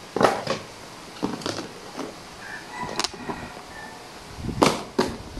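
Thin clear plastic lids being handled and pressed onto disposable plastic food containers: a series of crackles and clicks of flexing plastic.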